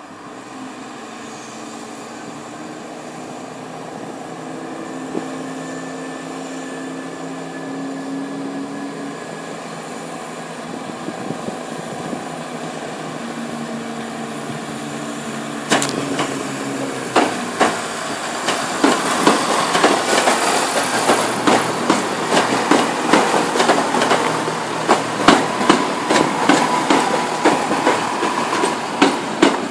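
Greater Anglia Class 170 Turbostar diesel multiple unit approaching and passing close by, its diesel engine droning steadily and growing louder. From about halfway its wheels set up a rapid clatter of clicks over the rail joints, loudest as the carriages go past.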